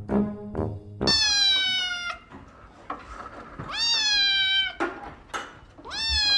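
Grey-and-white kitten meowing: three long, high meows of about a second each, the first about a second in, with short gaps between them.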